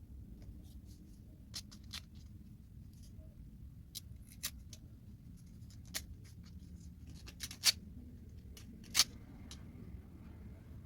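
Scattered sharp clicks and taps, about a dozen of them at irregular intervals, the loudest about three-quarters of the way through, over a low steady hum.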